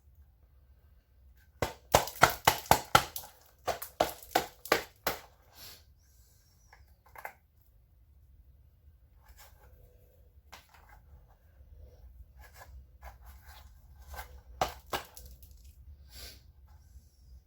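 Handling noise from washing-machine parts: a quick run of sharp knocks and clacks about two seconds in, lasting some three seconds, then scattered lighter clicks.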